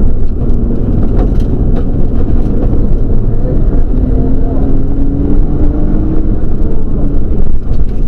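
Nissan Skyline GTS-t's turbocharged RB20 straight-six running hard under load, heard from inside the cabin over road and tyre noise. Its note climbs steadily for about two seconds near the middle, then drops.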